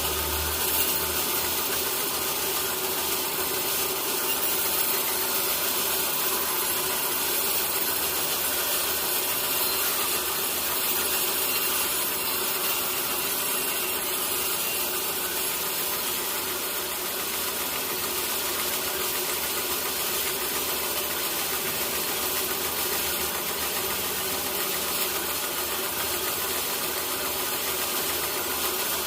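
Sawmill saw running steadily while cutting through a teak log, a continuous machine hum and hiss with no breaks.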